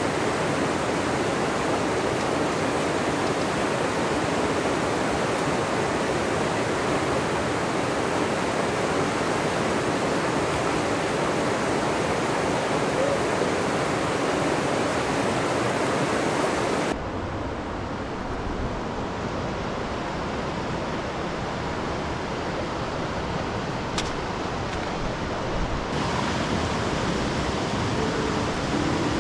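Fast mountain river rushing steadily over rocks and riffles. About two-thirds of the way through the sound changes abruptly to a duller, lower rush of rapids.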